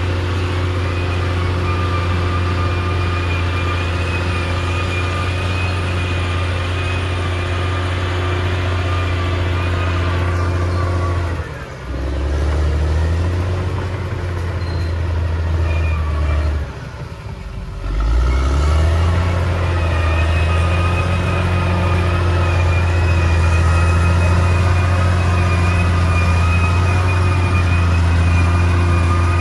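Caterpillar D6R XL bulldozer's diesel engine running steadily under work. Its note drops twice, about twelve and seventeen seconds in, then comes back up.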